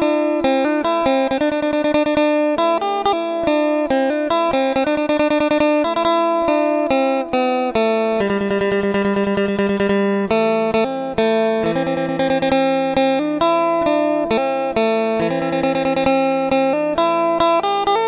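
Background music: a melody played on a plucked string instrument, guitar-like, over held lower notes.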